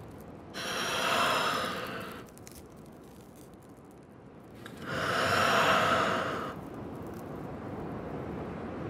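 Two long, breathy sighs: one about half a second in, the other about five seconds in. Each swells and fades over a second and a half or so, over a low, steady rush of noise.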